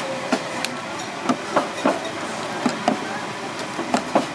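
Metal spoons clinking and tapping against a stainless steel tray while scooping a soft chocolate dough: about ten sharp, irregular clinks over steady background noise.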